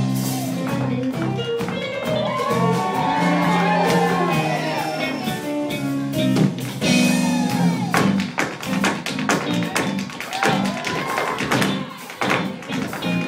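Tap shoes striking a stage floor in quick rhythmic patterns over Latin-style music with a low bass line. The taps grow denser from about halfway through.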